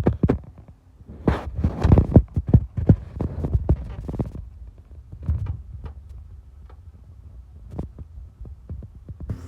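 Irregular low thumps and knocks, loudest in the first half, over a faint steady hum.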